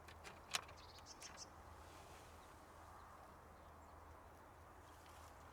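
Quiet outdoor background with one sharp click about half a second in, followed by a few fainter short clicks within the next second.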